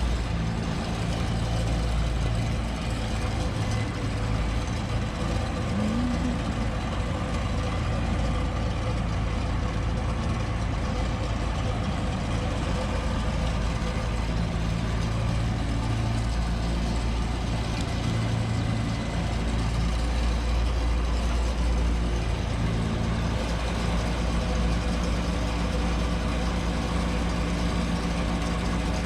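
John Deere 955 combine harvester's diesel engine idling steadily.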